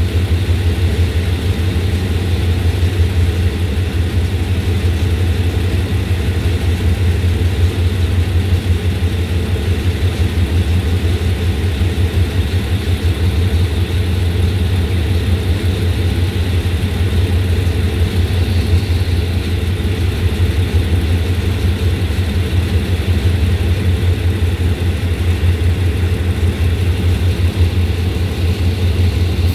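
Hitachi diesel-electric locomotive engine idling close by, a deep, steady drone that does not change.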